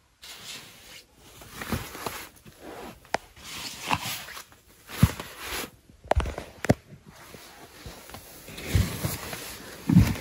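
Irregular rustling and soft knocks of fabric and bedding being handled, a string of short noisy sounds with a few sharper clicks.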